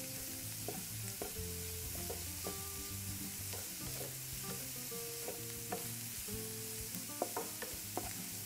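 Grated carrot and chopped spring onion sizzling in hot oil in a nonstick wok, stirred with a wooden spatula that taps and scrapes against the pan now and then. The vegetables are being sautéed in oil with ginger-garlic paste.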